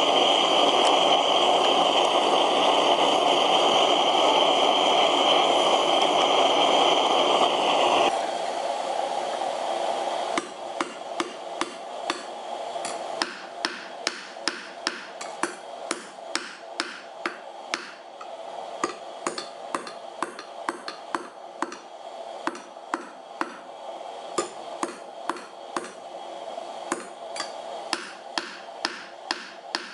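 A gas torch runs with a steady hiss into a small firebrick forge, heating steel rod tool blanks, and cuts off about eight seconds in. A few seconds later a hammer starts striking the red-hot steel on an anvil, forging the end flat into a woodturning tool blade, in a steady run of about two blows a second.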